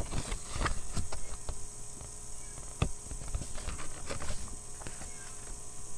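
Irregular small clicks and taps of items and packaging being handled, with a faint steady electrical hum underneath.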